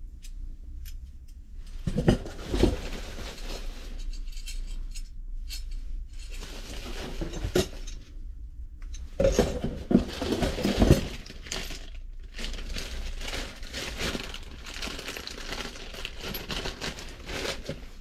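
Copper tubes and fittings being lifted out of a cardboard box packed in bubble wrap: plastic rustling and crinkling, with metallic clinks and knocks as the tubes touch. The knocks are loudest a couple of seconds in and again around the middle.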